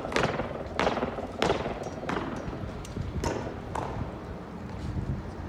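Flag escort squad stamping in drill, hard shoes striking concrete in six sharp, echoing stamps over about four seconds, then fading to faint steps.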